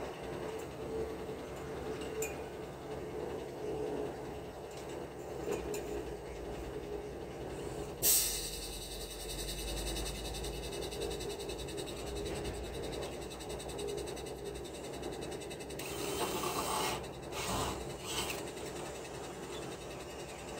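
Steady construction-site background hum with scattered light metal knocks as concrete formwork panels are fitted, one sharp knock about eight seconds in, and brief scraping noises near the end.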